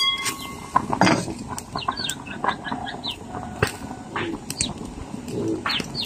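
Chickens clucking and small birds chirping in quick short calls, with scattered sharp clicks.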